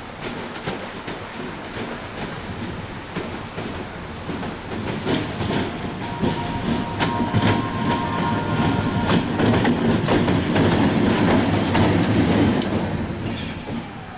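MÁV class 460 diesel shunting locomotive rolling slowly over station points, its wheels clicking over rail joints, with a brief wheel squeal midway. The rumble grows louder as it approaches, then drops away near the end.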